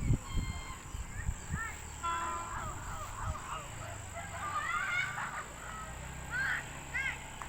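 Birds chirping: many short, repeated chirps throughout, with a few low thumps in the first three seconds or so.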